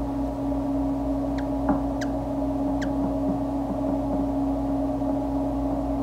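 Steady low hum, like a running machine or mains hum, with three or four brief, thin high squeaks that sweep downward about one and a half to three seconds in.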